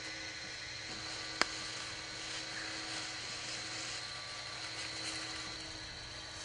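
Steady mechanical hum of a well pipe-pulling machine, its rubber-tyred drive wheels run by an electric motor as it feeds pipe back down the well. A single sharp click about a second and a half in.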